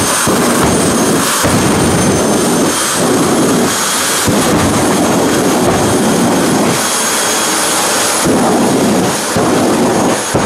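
Jet dragster turbine engines running on the start line: a steady high whine over a loud rumble that surges and eases every few seconds as the afterburner is fired.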